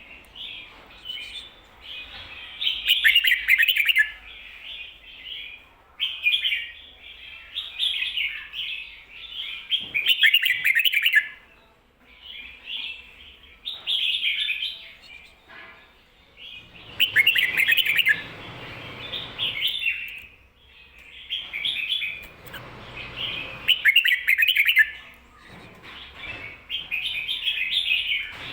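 Red-whiskered bulbul singing the 'ko-ta-ra' song doubled, in bright chirpy phrases of two to four seconds repeated over and over with short pauses between them. A rustling noise sits under two of the phrases in the second half.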